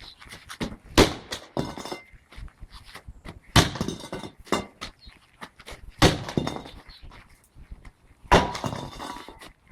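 Cardboard and plastic phone packaging being pried open and handled: four sharp thuds about two and a half seconds apart, each followed by rustling and scraping.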